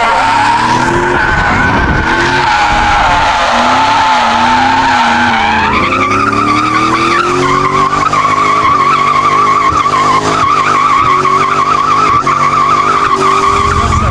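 BMW E36 with a swapped M60B40 4.0-litre V8 drifting: the tyres squeal loudly in a long, wavering squeal that jumps a little higher about six seconds in, with the V8 revving underneath and climbing in pitch over the second half.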